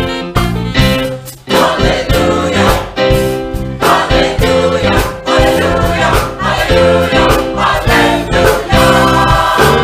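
Choir singing with instrumental accompaniment and a steady beat.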